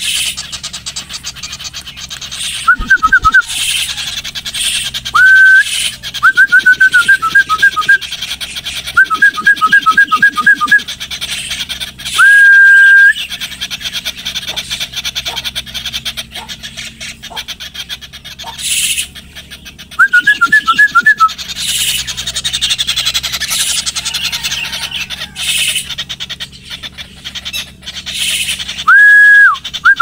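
Loud whistled calls: quick runs of short notes, often two pitches sounding together, and two long level whistles, one near the middle and one near the end, over a steady high hiss.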